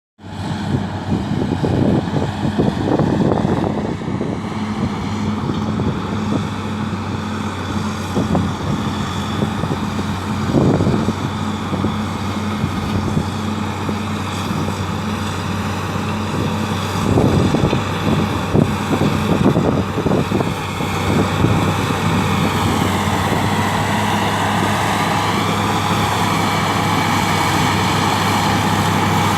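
Caterpillar D6H LGP bulldozer's diesel engine running steadily under work, with repeated clanks and knocks from the machine, heaviest in a cluster a little past the middle.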